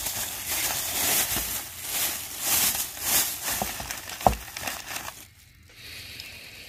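Plastic bag crinkling and rustling as it is handled, in uneven spurts, with one sharp click a little over four seconds in. It dies away about five seconds in.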